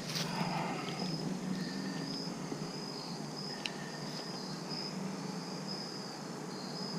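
Insects trilling steadily in a pulsing high chorus, with a single sharp click a little past the middle as a handlebar mirror is handled.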